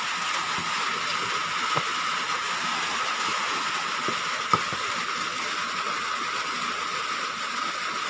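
Steady rain on a corrugated roof, an even hiss with a faint steady tone in it, broken by two sharp clicks about two and four and a half seconds in.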